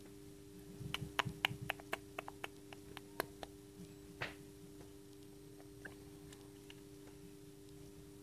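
Chick pecking at the inside of its pipped eggshell: a quick run of about a dozen sharp taps, about four a second, then one longer, rougher scrape and a few scattered taps. A steady low hum runs underneath.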